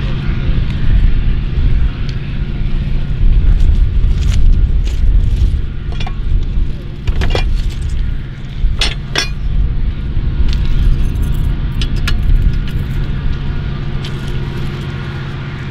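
Metal clanks and clinks from a hand-thrown railroad switch stand as its lever and latch are worked, a few sharp strikes grouped near the middle and again later, over a steady low mechanical hum.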